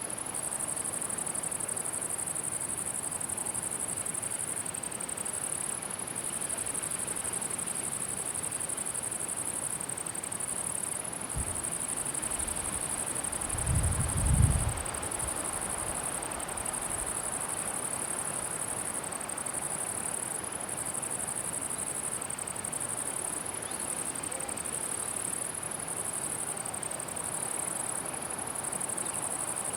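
Crickets chirring in a continuous high-pitched band in a summer meadow, with faint background hiss. A short low rumble about halfway through is the loudest moment.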